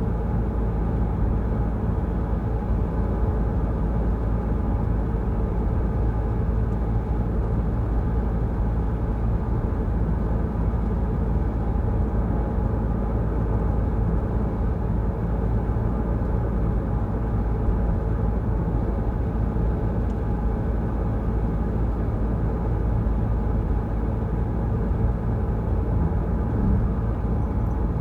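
Steady low rumble of a Peugeot Rifter driving along the road: engine and road noise, unchanging throughout.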